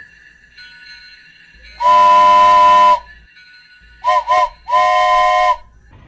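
Steam locomotive whistle sounding a chord: one long blast, then two short toots and another long blast, with a hiss of steam.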